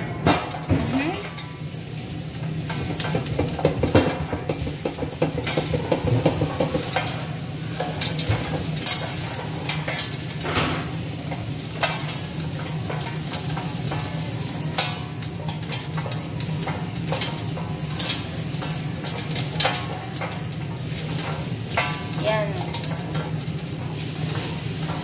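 Popcorn kernels popping inside a covered stainless-steel stockpot on the stove: many sharp, irregular pops over a steady hiss of hot oil.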